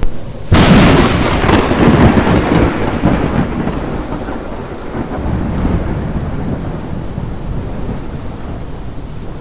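Thunderclap over steady heavy rain: a sudden sharp crack about half a second in, followed by a rolling rumble that fades over several seconds.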